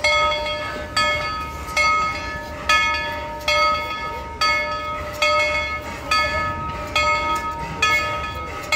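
Steam locomotive's bell ringing steadily, a clanging strike a little more than once a second, each one ringing on and fading before the next.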